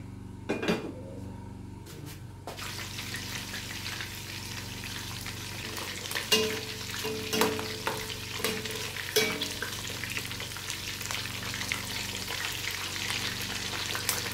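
Meat sizzling in hot oil in a stainless steel pot, the sizzle starting suddenly about two and a half seconds in as the pieces go into the oil. A metal spoon stirs and clinks against the side of the pot several times.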